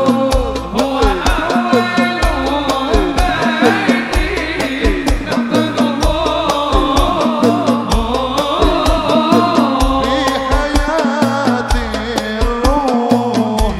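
Hadrah ensemble playing sholawat music: a steady, quick beat of frame drums and bass drum under a winding, ornamented melody.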